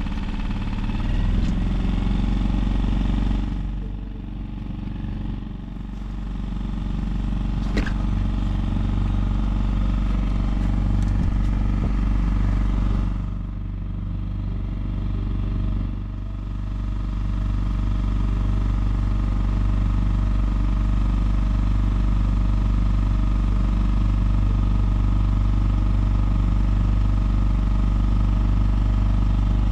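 A small sailboat's motor running steadily while motoring. Its sound drops away briefly twice, about four and thirteen seconds in, then returns.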